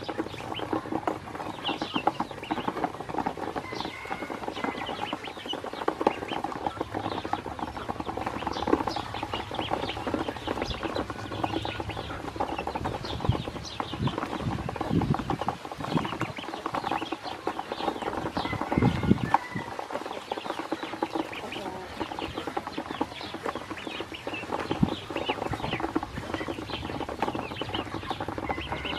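A group of ducklings peeping while they feed, their bills dabbling and pecking in a plastic tub with a constant patter of quick clicks and taps. A few short, high peeps stand out now and then.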